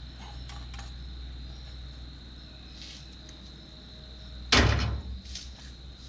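A single loud knock about four and a half seconds in, with a few light clicks before and after it, over a steady high trill of insects.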